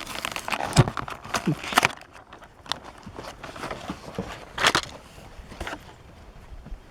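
Toy packaging being handled and opened to free the diecast vehicles: irregular clicks, rustles and scrapes, busier in the first two seconds and then sparser, with one louder click a little before five seconds in.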